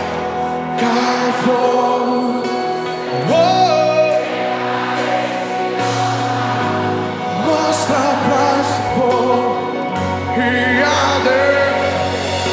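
Worship song: singing over instrumental accompaniment, with sustained chords and a steady bass that changes note every few seconds.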